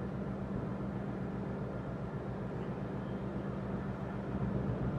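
Steady low drone of a ship's engine, a constant hum over a low rumble, with a rushing noise on top.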